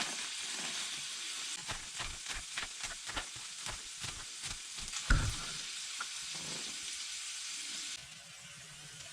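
Food frying and sizzling, with quick taps and clicks of a utensil stirring it and one louder knock about five seconds in. The sizzle drops away about eight seconds in.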